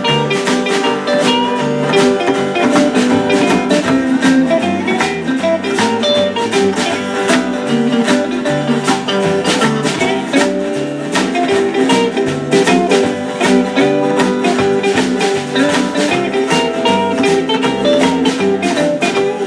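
Live band playing an instrumental break with a steady drum beat: hollow-body electric guitar picking the lead over acoustic guitar rhythm and upright double bass.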